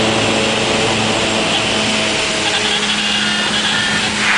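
Light aircraft's piston engine and propeller droning steadily, with airflow rushing past the cabin, heard from inside the cockpit during the landing.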